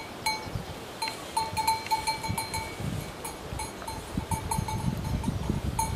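Small bells on grazing livestock clinking irregularly, several strikes a second, each ringing on briefly at one pitch.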